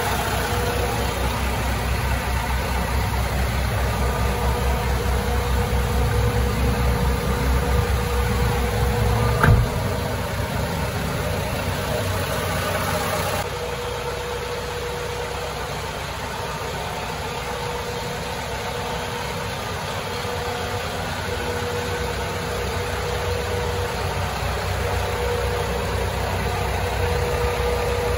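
Mitsubishi Canter truck's diesel engine idling steadily. A single sharp knock comes about nine and a half seconds in, and the sound drops slightly in level at about thirteen seconds.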